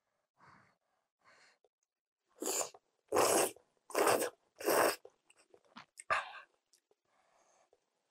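Kalguksu noodles slurped in four loud slurps a little under halfway through, with soft chewing and mouth clicks around them.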